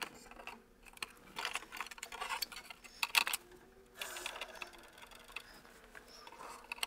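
Scattered light clicks and taps of plastic parts as the opened-up scanner unit of an Epson inkjet printer is handled and turned over, mostly in the first four seconds, then softer rustling.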